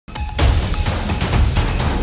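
Dramatic intro theme music with a deep, heavy low end, opening with a loud hit a fraction of a second in.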